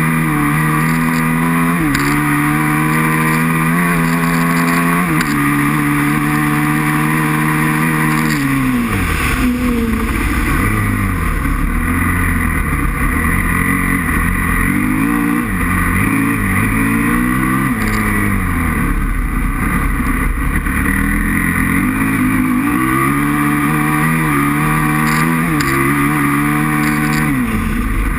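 Aprilia RXV 550 V-twin motorcycle engine, heard from on board, revving hard and climbing through the gears in steps, then dropping off about nine seconds in. It then rises and falls repeatedly as the throttle is opened and closed.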